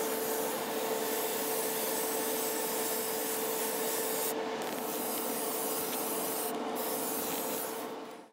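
Spray gun hissing as paint is sprayed, its air cutting out briefly twice, over a steady hum from the spray booth; the sound fades out near the end.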